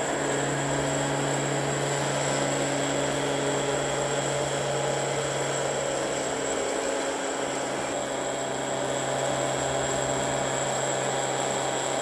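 Small electric motor of a homemade working-model vacuum cleaner running steadily with a constant hum and a thin high whine, briefly dipping about seven seconds in.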